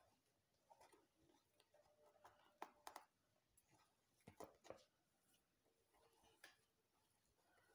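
Near silence, with faint scattered rustles and soft clicks of fingers braiding hair into cornrows.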